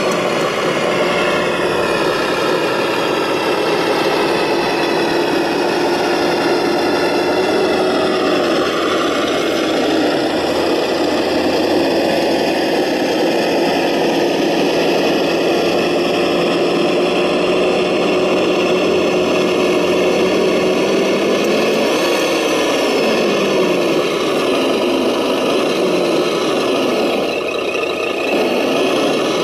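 Radio-controlled MB-trac 1800 model tractor running, a steady engine-like drone with a brief rise and fall in pitch about two-thirds of the way through.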